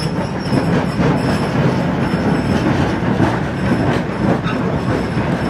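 Vintage Sydney O-class tram passing close by: a steady rumble of steel wheels on the rails, with a faint high wheel squeal coming and going.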